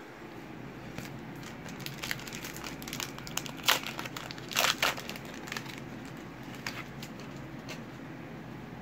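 A trading-card pack wrapper crinkling and crackling as it is handled and opened, the sharpest crackles clustered around the middle.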